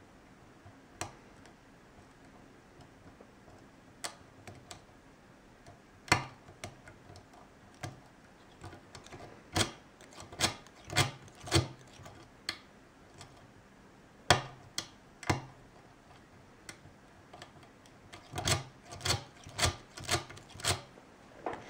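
Lock pick working the pin stacks of an ASSA oval cylinder: scattered sharp metallic clicks and ticks as the pins are lifted and set under tension. The clicks come in quicker runs about ten seconds in and again near the end.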